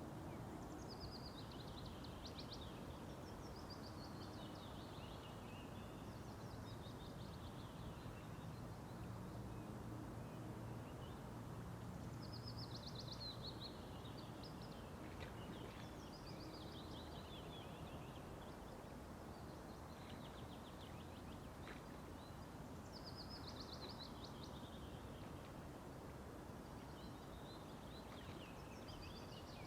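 A songbird sings the same short phrase again and again, each a fast run of notes falling in pitch over about two seconds, with pauses of a few seconds between. Steady low background noise runs beneath it.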